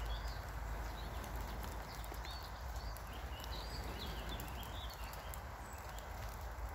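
Breath blown steadily into a smouldering tinder bundle to bring it to flame, with a few faint ticks and birds chirping in the background.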